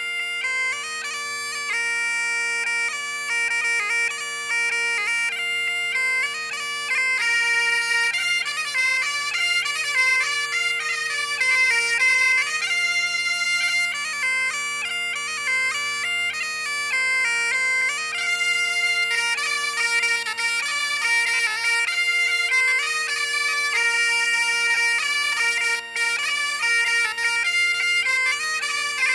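Bagpipe music: a tune played over steady, unbroken drones, with no drums.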